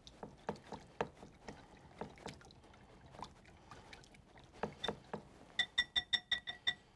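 Wire whisk beating a thin yogurt-and-stock marinade in a glass mixing bowl: wet swishing strokes with the wires clicking against the glass. Near the end the whisking quickens into a fast run of ringing taps on the glass, about five a second.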